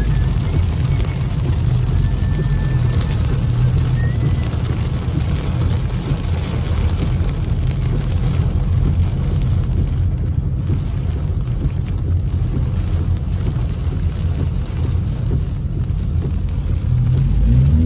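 Steady low rumble of a car driving on a rain-soaked road, heard inside the cabin, with the hiss of tyres on wet pavement and rain hitting the car.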